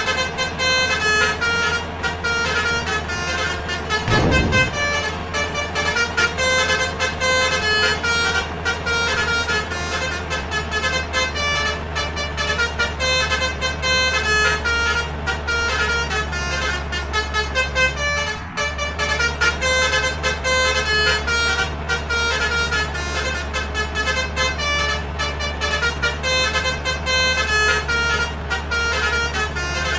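Bus basuri 'telolet' trumpet horn playing a fast melody of short notes, over the steady low hum of the idling engine. A brief low thump about four seconds in.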